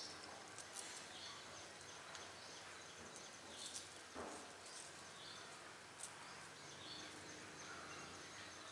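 Near silence: faint room tone with a few light, brief clicks.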